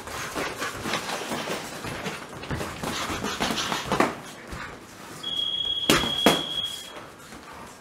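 Sparring in a boxing ring: scuffing footwork and quick glove and hand strikes, then two sharp punches landing on padded headgear about six seconds in. A high, steady electronic beep lasting about two seconds sounds over the punches.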